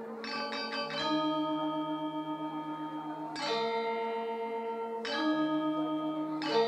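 Balinese gamelan bronze metallophones play a slow, sparse passage. After a quick run of strokes near the start, single chords are struck about every one and a half to two seconds, each ringing long with a slow, wavering shimmer.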